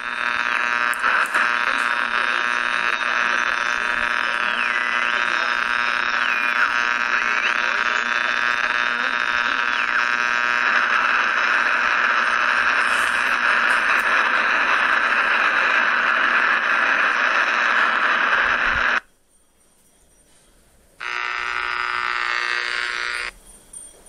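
Radio tuning sound effect: a loud buzzing interference tone with high whistles that glide down and back up, changing about ten seconds in to an even hiss of static. The static cuts off suddenly near the end, and after a short gap a second buzz sounds for about two seconds.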